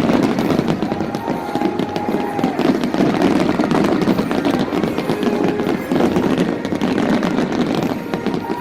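Fireworks going off in rapid succession, a continuous crackle of bursts with people's voices underneath.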